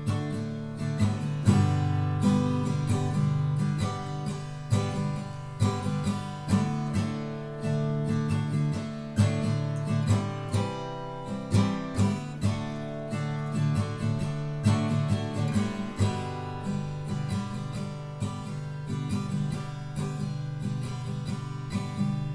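Acoustic guitar strummed steadily in a folk-style song's instrumental introduction, before the vocal comes in.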